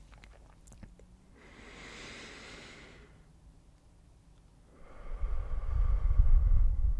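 Close-miked slow, deep breathing: a soft inhale about a second and a half in, then a longer, much louder exhale from about five seconds in that blows onto the foam-covered microphone with a low rumble.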